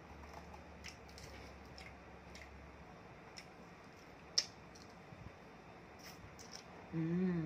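Faint, wet eating sounds of crab eaten by hand: scattered sharp mouth clicks and soft squelches as meat is sucked from the shell. A short hummed voice sound comes near the end.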